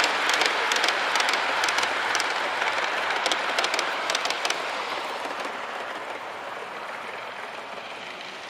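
Large-scale model freight train running past close by: a steady rushing rumble of wheels on the track, peppered with sharp clicks for the first four seconds or so, then fading away as the train moves off.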